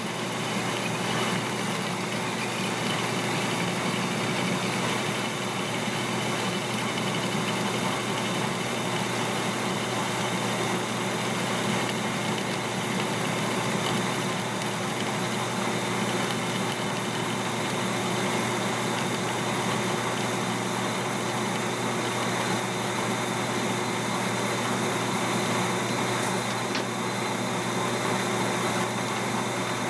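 Metal lathe running steadily while turning a steel part mounted on its faceplate: an even machine hum with a few constant tones and no knocks.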